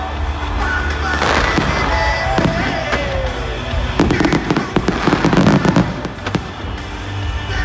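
Fireworks display: whistling shells gliding down in pitch, then a dense run of crackling bangs from about four seconds in, over a steady low rumble.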